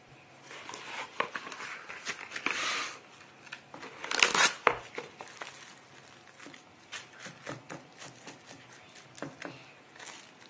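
Plastic cling film crinkling as it is stretched over a stainless steel bowl and pressed down around the rim. There is a loud rustle about four seconds in, then many small crackles.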